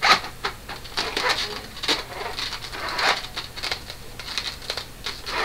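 Irregular clicks and knocks from hands working at a small plastic sewing machine, handling the fabric and the parts around the needle and presser foot rather than stitching.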